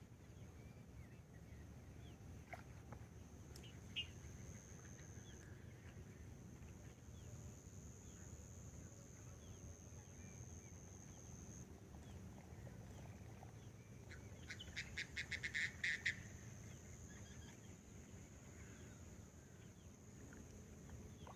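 Faint wild birds calling, with one quick rattling series of a dozen or so short notes lasting about a second and a half, about two-thirds of the way through. A steady, thin high-pitched tone runs underneath.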